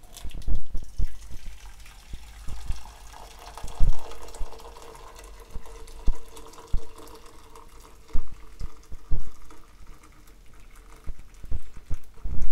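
Just-boiled water poured in a steady stream from a collapsible silicone kettle into an aluminium canteen cup, splashing as the cup fills, with scattered low knocks.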